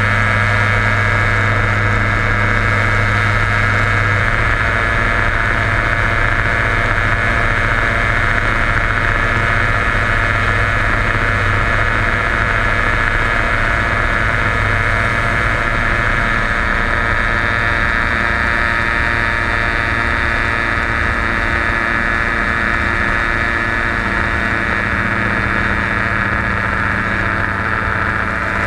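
Quicksilver Sport 2S ultralight's engine and pusher propeller running steadily in cruise flight, a constant loud drone.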